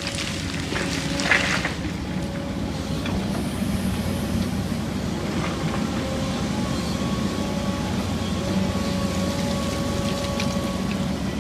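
Kobelco 240 excavator working as it loads an articulated dump truck: a steady diesel drone with a wavering hydraulic whine, and a clank about a second in.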